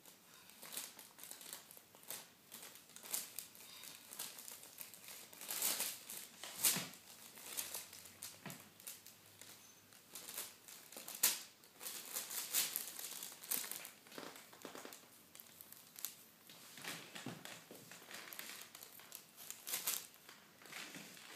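Paper crinkling and rustling in irregular bursts as a kitten paws, bites and rolls about in a sheet of wrapping paper, with a few sharper crackles along the way.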